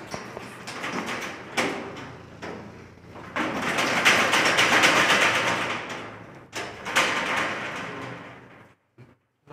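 Corrugated steel rolling shutter moving in its guides, its slats rattling and clanking, in one long loud rattle from about three and a half to six and a half seconds in, with shorter bursts before and after.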